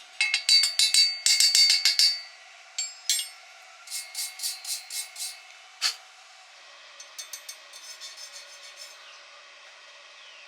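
Metal struck against metal again and again, sharp taps and clinks with a short high ring: a fast run of strikes at the start, another group a few seconds in, one hard knock, then lighter, quicker clicks near the end.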